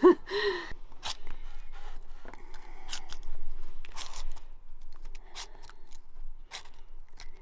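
Scissors cutting through a sheet of laminate flooring in slow, separate cuts, each ending in a sharp click, spaced a second or more apart.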